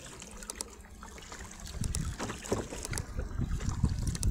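Water lapping and trickling against a plastic kayak's hull, with small ticks of water. Wind rumbles on the microphone, growing louder from about two seconds in.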